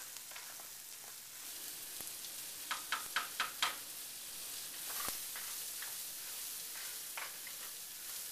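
Boxed rice-and-vermicelli mix and chopped onion sizzling in butter in a skillet as it is stirred, a steady hiss while the rice browns. About three seconds in comes a quick run of five sharp taps.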